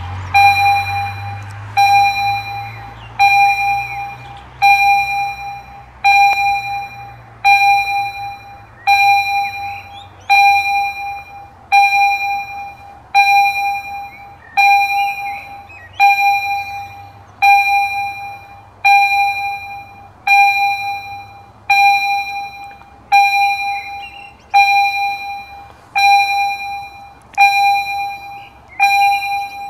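Level-crossing warning bell striking at an even pace, about once every one and a half seconds, each strike ringing out and fading before the next. It is the warning that a train is approaching while the barriers are lowered.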